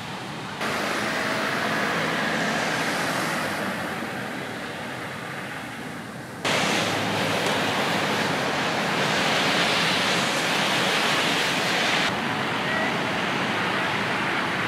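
City street traffic noise: a steady hiss of cars and tyres on a wet, snowy road. It changes abruptly in loudness and tone three times, about half a second, six seconds and twelve seconds in.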